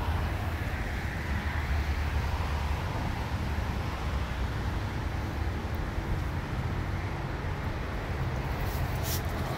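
Steady low rumble of vehicle engines and traffic with some wind, with a brief rustle about nine seconds in.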